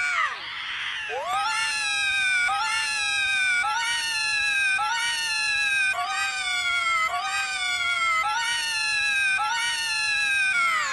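A short, high-pitched cartoon voice cry, digitally altered and looped about nine times a little over a second apart, each repeat a quick rise then a slow falling wail that sounds cat-like.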